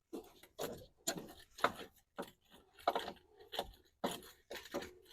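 Irregular metallic clicks and knocks of car tools being worked during a tyre change: the jack being lowered or the wheel wrench on the lug nuts, a few sharp taps a second.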